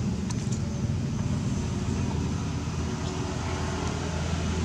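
A steady low rumble of a running engine, with a faint hum coming in about a second and a half in.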